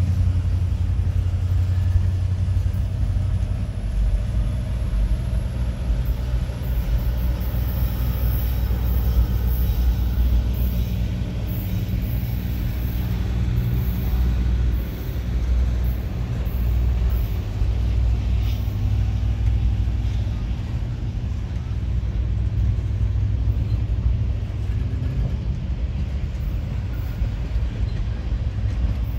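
A freight train of refrigerated boxcars rolling past: a steady low rumble of steel wheels on the rails.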